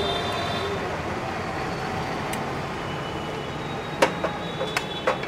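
Steady street-stall background noise like passing traffic, with a few sharp metal clinks about four to five seconds in as a steel ladle knocks against the serving tray and plate.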